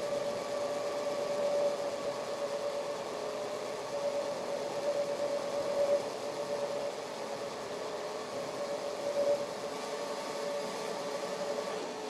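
Metal lathe running steadily while a scissor-type clamp knurling tool presses its wheels into a spinning brass workpiece: a continuous mechanical hum carrying a couple of close steady tones.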